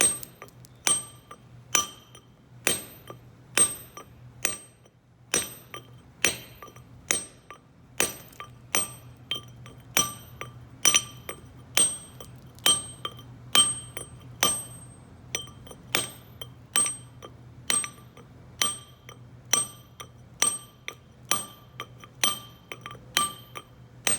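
A setto hammer striking a steel chisel held against granite: sharp, evenly paced blows about once a second, each with a short bright metallic ring as the stone is chipped away.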